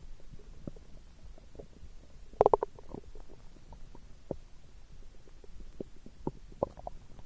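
A person's stomach gurgling: a string of short, irregular pops and bubbling gurgles, with a louder burst of gurgles about two and a half seconds in.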